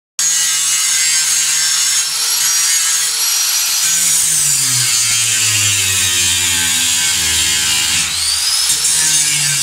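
Angle grinder grinding into the rusted steel frame of a bus: a loud, steady high whine with grinding hiss. The motor's pitch sags as it bears down under load and rises back about eight seconds in.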